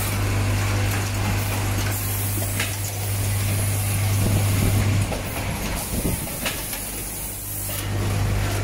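Automatic wire crimping machinery running: a steady low hum under a haze of hiss, with a few sharp clicks. The hum drops out about five seconds in and comes back near the end.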